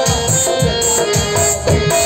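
Bhajan music: a dholak hand drum playing a steady rhythm of several strokes a second under a keyboard melody.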